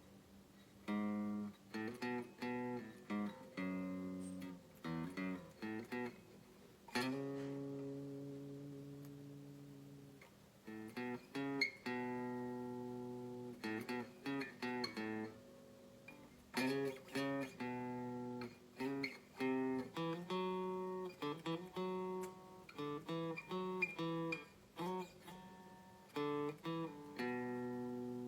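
Donner DST1 Strat-style electric guitar played with a clean tone: picked single notes and arpeggiated chords, with some chords left to ring out and fade, the longest about seven seconds in.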